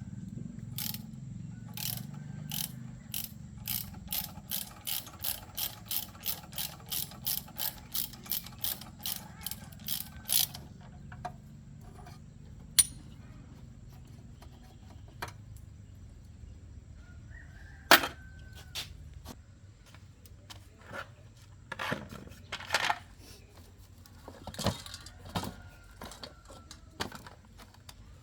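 Hand tools working on metal: a run of evenly spaced clicks that speed up over about ten seconds, then scattered knocks and clinks, two of them sharp.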